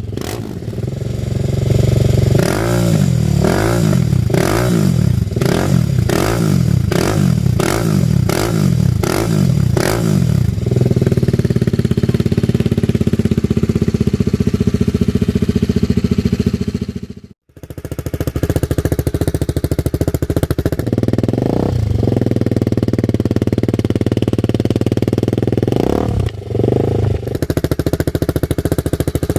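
TVS Apache RR310's single-cylinder engine through a replica Akrapovic exhaust, blipped about once a second for the first ten seconds and then running steadily. After a brief cut it runs steadily again, with two short revs near the end.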